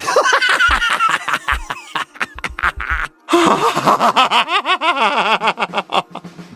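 Laughter sound effects played one after the other: a first laugh clip, a brief break about three seconds in, then a second laugh clip.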